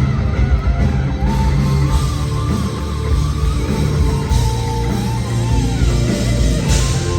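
Live heavy metal band playing: a lead electric guitar melody over a heavy full band of bass and drums, with brief cymbal crashes about four and a half and six and a half seconds in.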